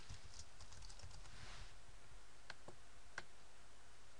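Typing on a computer keyboard: a quick run of soft keystrokes in the first second and a half, then a few separate clicks.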